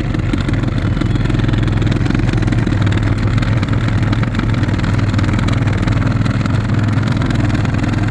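Old heater/AC blower motor of a 2010 Ford Transit Connect running loudly with a rough, ugly-sounding noise over a steady low hum. This is the noise of a failing blower motor that is due for replacement.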